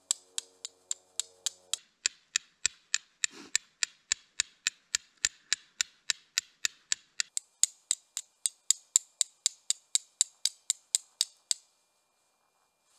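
A carbon striking steel being struck against a piece of blue quartz in rapid, even strokes, about four sharp clicks a second for some eleven seconds: flint-and-steel fire lighting, throwing sparks onto char cloth.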